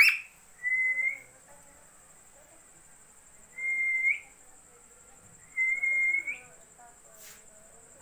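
Indian ringneck parakeet whistling: one sharp rising chirp, then three clear whistles, each a held note that flicks upward at the end.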